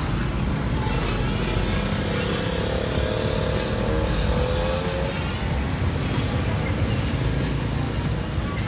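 Street traffic noise: a steady rumble of passing cars and motorcycles, with a faint hum rising slightly for a few seconds in the middle.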